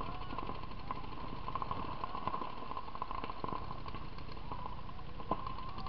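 Paintball markers firing in scattered, irregular pops across the field, single shots and short strings, over a steady background hum.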